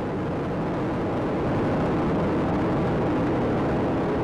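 Space Shuttle Atlantis's solid rocket boosters and three main engines during ascent: a steady, dense roar of rocket exhaust that grows a little louder about a second and a half in.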